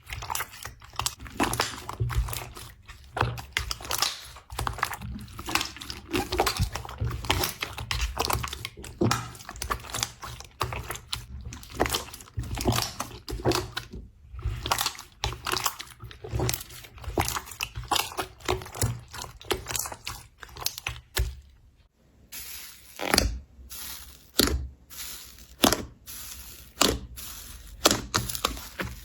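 Slime being squeezed and worked by hand close to the microphone: dense wet crackling and popping. Near the end it pauses briefly, then gives way to sparser, sharper crunches and pops.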